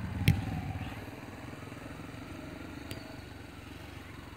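Small motorcycle engine running steadily as the bike rides across the field, fading after about a second as it moves away. A sharp click about a third of a second in.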